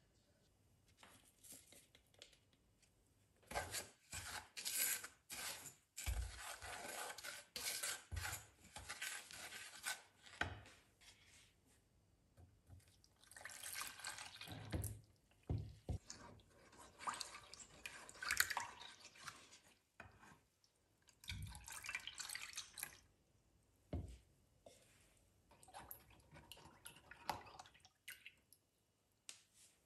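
Milk pouring into a saucepan and a silicone spatula stirring a milk, sugar and cornstarch mixture against the pan, in several bursts a few seconds long with a few soft knocks.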